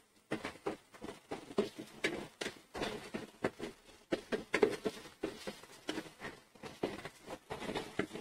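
Metal spoon scraping and knocking against a stainless steel pan while stirring a frying onion-tomato masala, in irregular strokes a few times a second.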